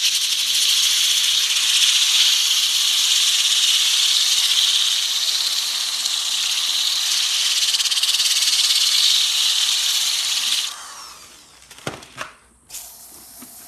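DeWalt orbital sander with a 50-grit diamond polishing pad wet-sanding a concrete countertop, a steady high whirring hiss. It shuts off about three-quarters of the way through and winds down, followed by a few sharp clicks and a brief rustle near the end.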